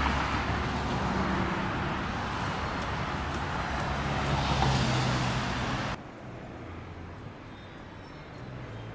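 Road and traffic noise from a moving car: steady tyre and engine sound that cuts off abruptly about six seconds in, leaving a much quieter background.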